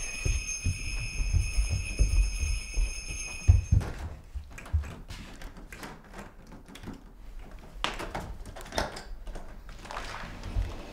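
A steady, bell-like ringing with several high held tones plays over quick thumping footsteps, then stops abruptly about four seconds in. After that come scattered clicks and knocks as a front door's knob is turned and the door is opened.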